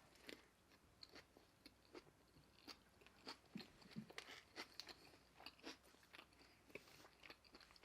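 Faint close-up chewing of food: a run of short, moist mouth clicks and soft crunches, two or three a second.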